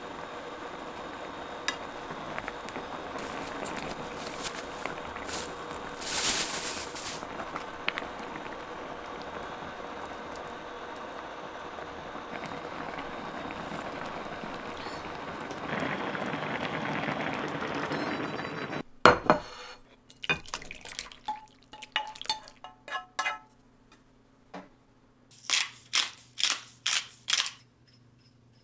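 Pot of dumpling soup boiling steadily, with a brief clink of a spoon on the pot. Then come a few knocks of dishes and utensils, and about five quick taps of a shaker sprinkling chili flakes.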